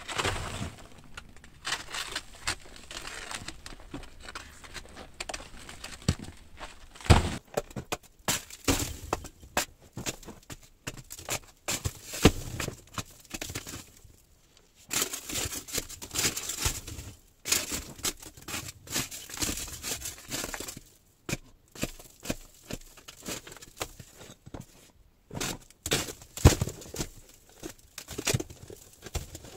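Pick striking and chipping soft rock in a narrow tunnel wall, with broken rock and grit crumbling and pattering down. The blows are irregular and come in runs with short pauses between them.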